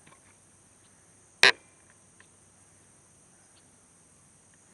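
Steady high insect buzz in the background, with one loud sharp knock about a second and a half in.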